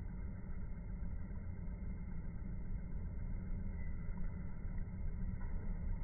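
Steady low rumble of outdoor background noise, heaviest in the bass, with no distinct event standing out.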